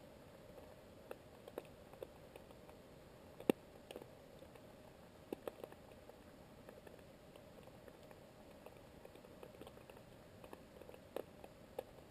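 Underwater ambience in shallow coastal sea: a faint steady hiss with scattered sharp clicks and ticks, the loudest about three and a half seconds in.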